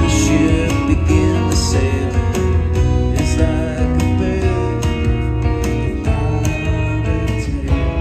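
Live band music: strummed acoustic guitar and electric twelve-string guitar over a strong low bass line, with regular strummed strokes.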